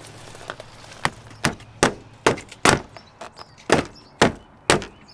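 A mallet striking a vinyl sill extender to tap it into the sill groove of a replacement vinyl window, about nine sharp knocks at roughly two a second.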